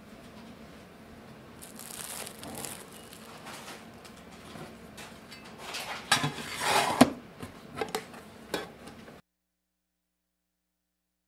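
Plastic cling wrap crinkling as it is peeled off a metal loaf pan, then the pan's steel lid scraping and clanking as it is slid shut about six seconds in, with a few lighter clicks after.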